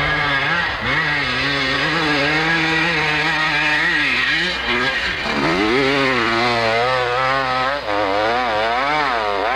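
Dirt bike's two-stroke engine at high revs climbing a steep dirt hill under full throttle. From about halfway through the revs swing rapidly up and down as the rear wheel spins and grabs on the slope.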